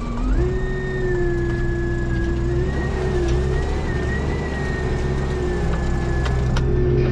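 Tractor diesel engine, heard from inside the cab, rising in revs about a third of a second in and then running at a steady high speed under heavy load, its pitch wavering slightly. The differential lock is engaged and a lower gear selected to pull the tractor out of wet, soft ground.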